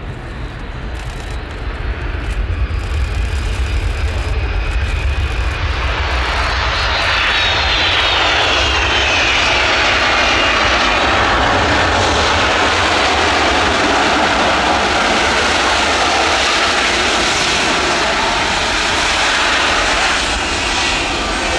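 Boeing C-17A Globemaster's four Pratt & Whitney F117 turbofans on landing: a low rumble at touchdown, then a loud, steady roar building about six seconds in as the engines spool up in reverse thrust for the landing roll, with a whine falling in pitch early on, easing near the end.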